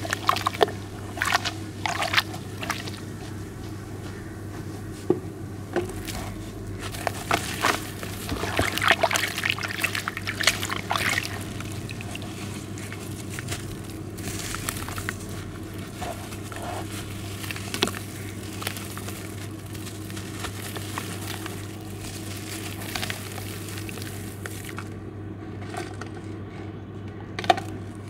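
Hands squeezing and squelching a wet slurry of charcoal and sand in a plastic tub, with water sloshing; the squelches come irregularly, thickest in the first dozen seconds and sparser after. Near the end water runs off a lifted lump of wet sand back into the tub.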